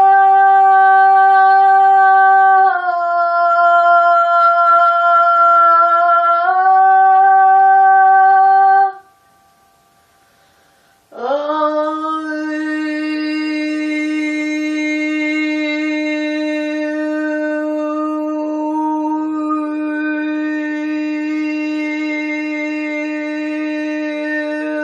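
Long, steady held tones: a high note that steps down and back up, a pause of about two seconds, then a woman's voice sliding up into a lower note and holding it, the vowel shifting so that different overtones ring out above it.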